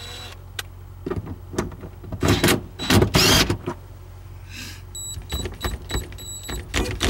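Cordless drill motor run in two short bursts, with knocks of handling before them and light clicks after.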